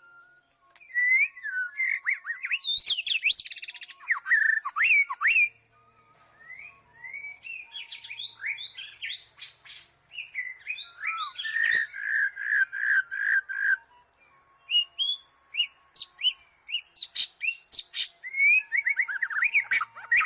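White-rumped shama singing a loud, varied song of rich whistled phrases, quick sweeping notes and rapid repeated chattering notes, delivered in three long bursts with short pauses between them.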